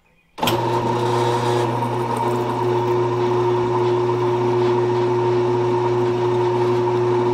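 Drill press switching on about half a second in and running at a steady pitch as its bit is fed into a steel pin clamped in the vise, drilling a hole for a keeper pin.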